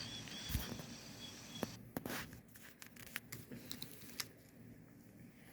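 Faint handling noise: scattered small clicks and short rustles, thinning out about halfway through.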